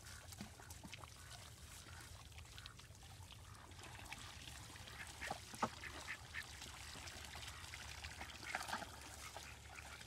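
Ducks quacking softly now and then: a few short, faint calls, clearest about halfway through and again near the end.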